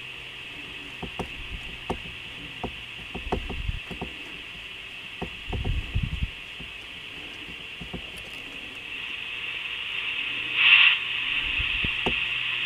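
Steady hiss of a Karat-M two-way radio's receiver playing through its loudspeaker. It grows louder in the last few seconds, with a brief louder swell near the end, over scattered light clicks and low knocks from handling the radio's controls.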